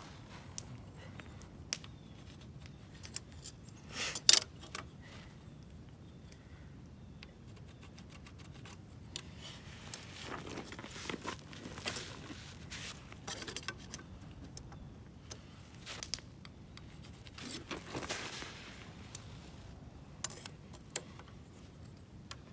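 Scattered light clicks, scrapes and rustling of hand tools and timber being handled while a beam is marked out for drilling, with a few sharper knocks about four seconds in and again near twelve and eighteen seconds.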